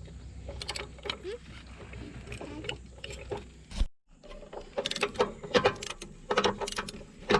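Hand wrench working the bolts of a steel chainsaw mount, giving a run of sharp metal clicks and ticks. There is a short break about four seconds in, and the clicking comes thicker after it.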